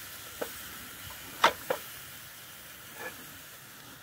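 Pork butt steak sizzling on the grate of a small wood-fired grill, a steady hiss, with four sharp clicks, the loudest about a third of the way in.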